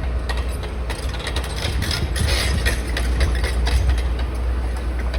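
A heavy diesel engine running steadily at a low rumble, with a spell of crackling and crunching clicks through the middle.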